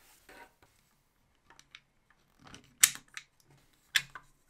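Clear plastic parts of a scale-model boxer engine kit being handled and fitted together: a soft rustle, a few light ticks, then two sharp plastic clicks, the loudest about three seconds in and the other about four seconds in.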